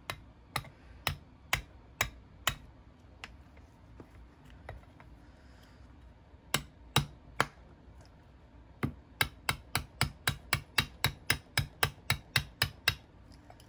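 Brass-headed gunsmithing hammer tapping a roll pin into a CZ P-07 pistol slide to retain the firing pin block. There are six sharp taps about two a second, then three more about six and a half seconds in, then a quick run of about four taps a second from about nine seconds in.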